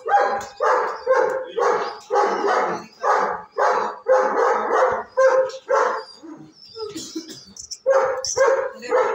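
A dog barking over and over, about two barks a second, breaking off briefly about two-thirds of the way through before a few more barks.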